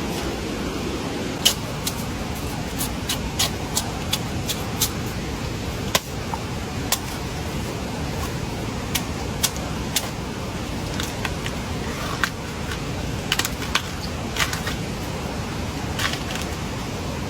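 Steady rushing noise with many irregular sharp clicks and ticks scattered through it.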